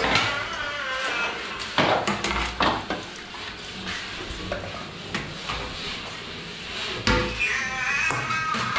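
Steel serving tongs clanking and scraping against steel bowls and a pan of cooked trotters, a handful of sharp metallic clinks spread out irregularly.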